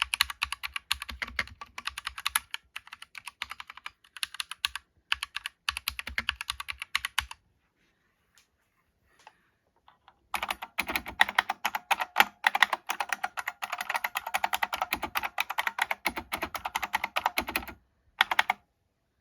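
Typing on mechanical keyboards: a run of fast keystrokes, a pause of about three seconds, then a second run with a fuller, deeper clack, and a brief flurry of keystrokes near the end.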